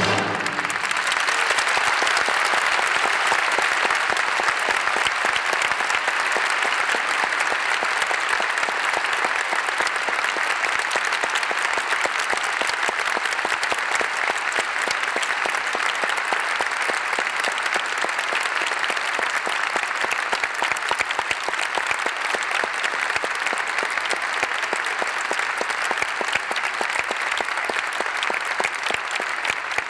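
Audience applauding: dense, steady clapping, easing slightly near the end. The last notes of the music cut off just as the applause swells.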